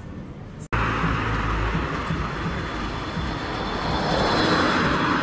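City street traffic with a tram approaching on its track: a steady rushing noise with a faint high whine, cutting in abruptly about a second in.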